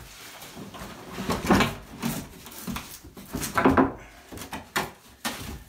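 Acrylic shower base being handled and set into place, its hollow plastic shell knocking and scraping. There are two louder bumps, about a second and a half and three and a half seconds in, then a couple of short sharp knocks near the end.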